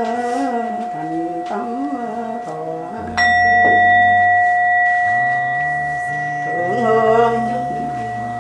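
A Buddhist bowl bell is struck once about three seconds in and rings on with a long, steady tone. A voice chants before and after the strike.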